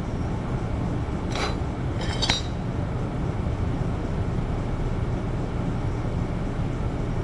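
Two light metallic clinks, about a second and a half and two seconds in, as a small welded steel cube and a steel plate are moved by a gloved hand on a steel welding table. A steady low hum runs underneath.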